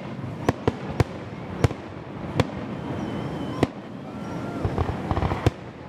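Aerial fireworks shells bursting: a string of sharp bangs at irregular intervals, about eight in six seconds, with a quick cluster of crackling pops near the end.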